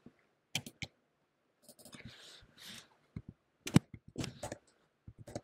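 Scattered computer mouse and keyboard clicks, irregular and fairly faint, with a soft brief rustle near the middle.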